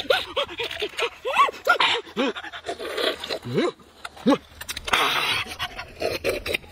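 A person's short wordless vocal noises, quick rising and falling hums and grunts over and over, with slurping from a green coconut.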